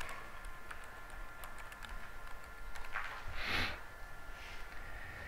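Light keystrokes on a computer keyboard, scattered taps as a line of C code is typed and a compile command entered. A short hiss comes about three and a half seconds in, over a faint steady high hum.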